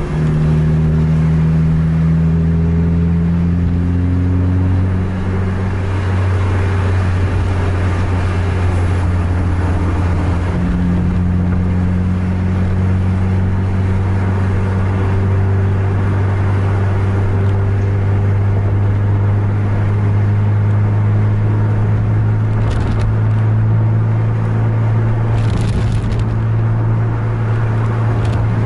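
Diesel bus engine droning steadily under way, heard from on board, its note climbing for the first few seconds, dropping about six seconds in, then holding steady and rising slightly near the end.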